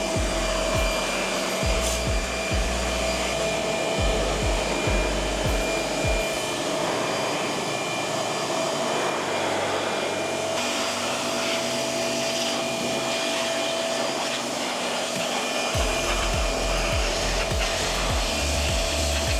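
Steady rushing spray noise, typical of spraying down and rinsing a greasy transmission case, with background music and a low beat in the first few seconds and near the end.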